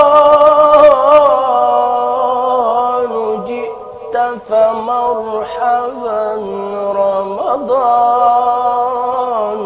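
A male religious chanter (mubtahil) singing unaccompanied: long held, ornamented notes with the pitch slowly falling, and a wavering turn about a second in and again near the end.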